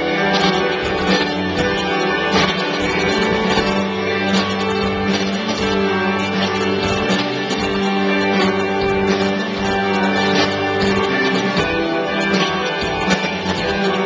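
Guitar music playing continuously.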